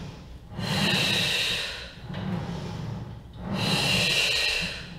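A woman breathing audibly while exercising, two long breaths in time with a slow leg press: one starting about half a second in, the other a little past the middle.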